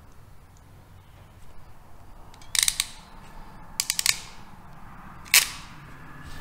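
Ratcheting crimping tool clicking as it crimps a heat-shrink butt connector onto the hot wire of a power cable. There is a quick run of clicks about two and a half seconds in, another run around four seconds, and one sharp single click a little after five seconds.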